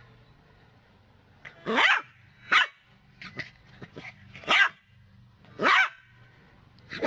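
A puppy barking in play: four short, high barks spread over a few seconds, with a few fainter yips between them, starting about a second and a half in.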